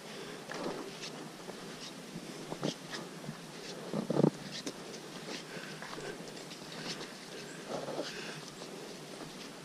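Footsteps on a dirt forest trail, irregular soft steps with a heavier one about four seconds in, over faint high chirping in the background.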